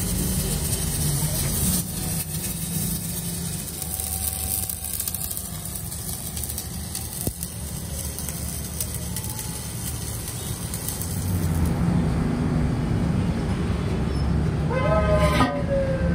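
Electric arc welding on a steel truck wheel rim: a steady crackling sizzle that stops about twelve seconds in, over a low steady hum. Near the end a vehicle horn sounds, its pitch falling.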